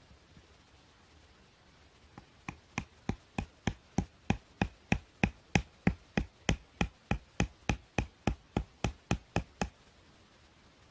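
A hatchet chopping into a green poplar pole with quick, even strikes, about three a second, starting about two seconds in and stopping near the end. It is notching the end of a snowshoe frame piece.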